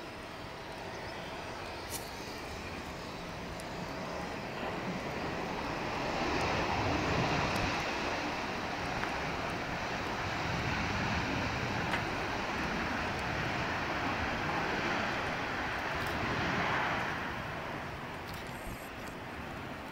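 Jet aircraft noise on an airfield: a steady hiss swells into a louder roar about six seconds in, holds, and fades after about seventeen seconds.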